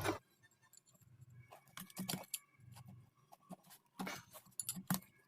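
Faint, scattered metallic clinks and taps of tools and motor parts being handled, in short clusters about two seconds in and again about four to five seconds in.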